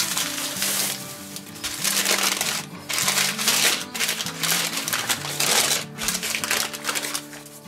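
Plastic bag and butcher paper crinkling and rustling in loud, irregular bursts as a wrapped meat package is pulled out and unfolded by hand, over steady background music.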